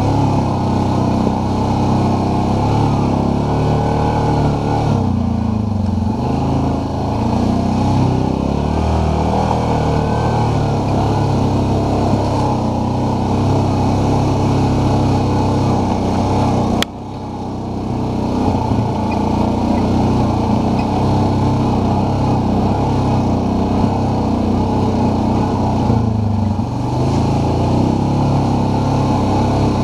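ATV engine running under way at a steady pace on a trail, easing off and picking up again twice. A sharp click comes a little past the middle, followed by a brief dip in level.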